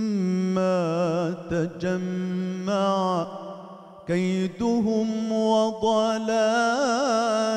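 Male munshid singing Islamic religious chant (inshad), drawing out long melismatic notes with wavering ornaments. He breaks off a little past three seconds in and then takes up the line again.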